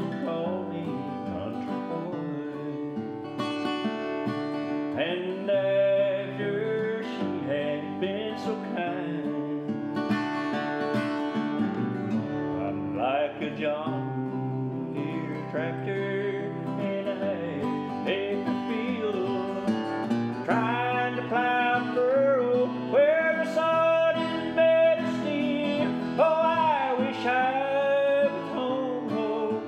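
Steel-string acoustic guitar strummed in a country/bluegrass song, with a man singing over it, most clearly in the second half.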